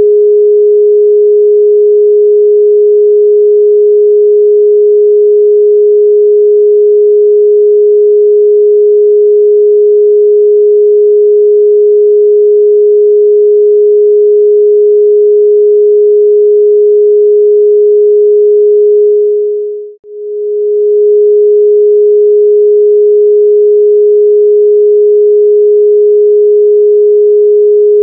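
Electronically generated pure sine tone held at one steady, mid pitch. About two-thirds of the way through it fades out to silence and back in over about two seconds.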